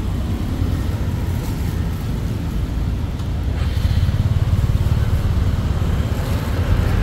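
Steady low rumble of street traffic, with motorbikes and cars passing, growing somewhat louder about four seconds in.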